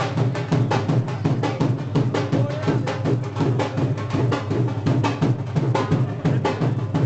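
Loud music with a fast, steady drum beat.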